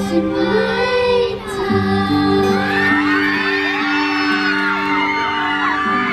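Live concert music holding sustained chords at the close of a song, and from about two and a half seconds in a crowd of fans screaming and cheering in high voices over it.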